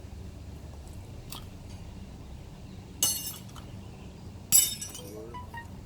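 Glass trash being tossed and breaking: two sharp clinking crashes about a second and a half apart, the second louder, followed by a few small tinkles of pieces settling.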